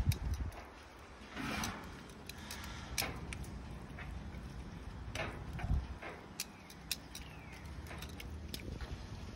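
Metal tongs clicking and scraping against a skillet as strips of steak and green beans are tossed, in short irregular clicks, with a dull knock a little before six seconds in.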